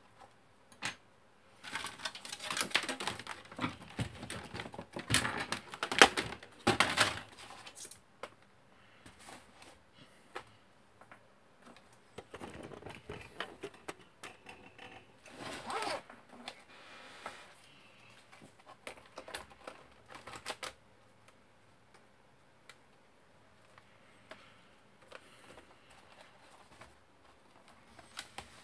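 Hands reassembling a laptop: irregular clicks and clatter of plastic case parts, connectors and the circuit board being handled and fitted. The clicking comes in two busy stretches, one in the first several seconds and another around the middle, and is sparser near the end.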